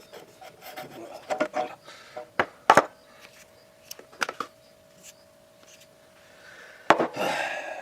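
Several sharp knocks and clicks, with a faint steady hum between them and a short rustling noise near the end.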